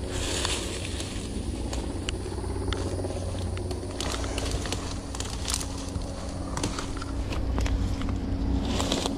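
Dry leaves, twigs and brush crunching and crackling underfoot as a person scrambles down a steep, overgrown creek bank, in many short irregular crackles. Under it runs a steady low rumble with a faint steady hum.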